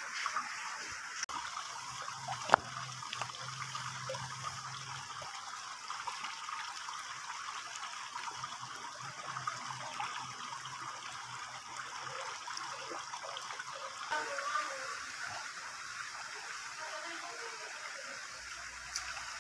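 Steady trickle of running water, with one sharp click about two and a half seconds in.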